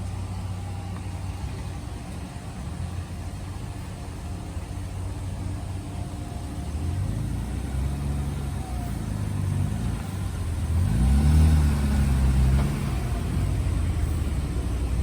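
BMW E36 M3's straight-six engine as the car drives up and passes close, getting louder, with the engine pitch rising and falling under throttle; it is loudest about eleven to twelve seconds in.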